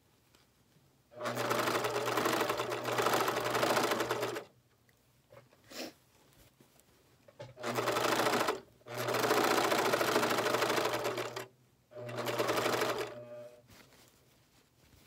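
Overlock (serger) sewing machine stitching and trimming a seam, run in four bursts of one to three seconds with short stops between them. Faint handling clicks come in the pauses.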